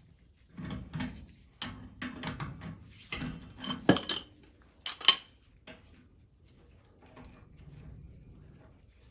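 Metal tools and fittings clinking and knocking as the steam boiler's sight glass valves are worked off, in a run of sharp clanks with the loudest about four and five seconds in, then quieter handling.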